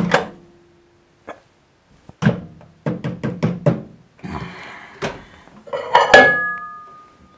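Knocks and clatter of a microwave oven being worked: a loud clunk, a short hum, a run of quick knocks, then handling noise as the door opens and a mug is taken out, with a thin beep-like tone near the end.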